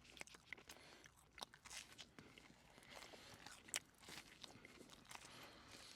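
A person chewing and biting food close to the microphone, a run of small irregular crunches and mouth clicks, one a little louder near the end; he is eating bread dipped in butter chicken sauce.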